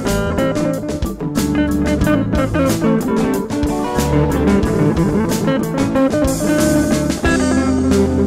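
Live band playing an instrumental jam: electric lead and rhythm guitars, keyboard and an electronic drum kit, with a steady drum beat under the guitar lines.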